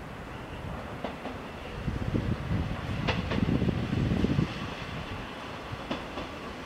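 KiHa 40-series diesel railcar drawing toward the platform: a low diesel rumble that swells in the middle and then eases. Pairs of sharp clicks from the wheels crossing rail joints come about a second in, around three seconds and near six seconds.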